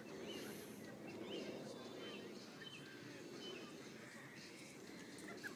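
Faint outdoor background with scattered short bird chirps over a low, even murmur.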